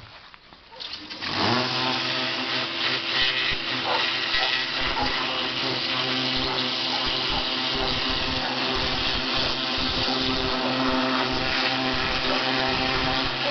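Stihl RE 117 electric pressure washer starting up about a second in, then running steadily: an even motor hum with a hiss over it.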